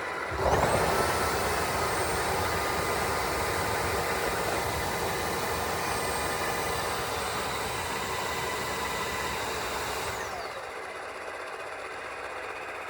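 Tineco Floor ONE S5 wet-dry vacuum running its self-cleaning cycle on the dock. Its motor spins up with a rising whine about half a second in, runs steadily, and winds down with a falling whine about ten seconds in.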